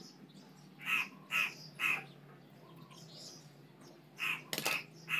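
Crow cawing: three caws in quick succession about a second in, then another run of caws near the end, with a single sharp click among them.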